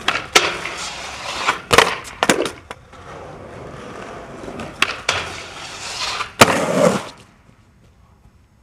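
Skateboard on a metal handrail and concrete: a string of sharp board clacks and impacts with scraping and rolling noise between. It stops about seven seconds in.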